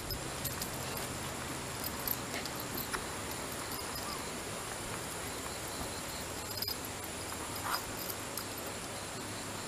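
Shiba Inu dogs close by being petted: faint animal sounds and a few light clicks over a steady background hiss.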